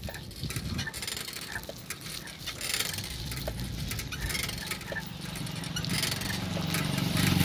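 Motorbike engine running, its low hum growing louder over the last couple of seconds, with wind rumbling and buffeting on the microphone.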